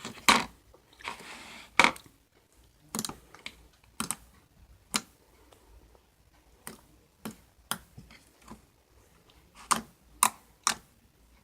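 Red velvet jiggly slime being squished and poked by hand, giving irregular sharp clicks and pops, with a short crackly stretch in the first two seconds.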